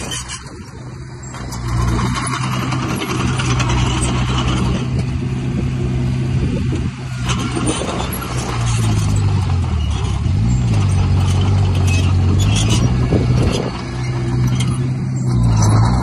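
Heavy diesel earthmoving machinery running, its engine pitch dipping and recovering about ten seconds in, with scattered short clanks on top.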